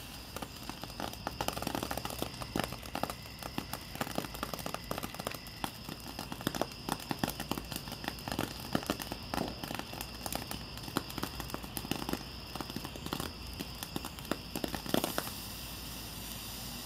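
Ground fountain firework burning with a steady hiss and a dense, rapid crackling from its spray of sparks; the crackling stops about 15 seconds in, leaving the hiss.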